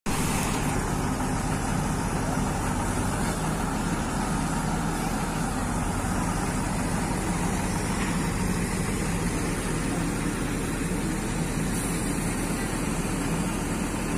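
Heavy diesel engines running steadily: a JCB backhoe loader and a TATA tipper truck, as the backhoe tows the mired truck out of the mud on a rope.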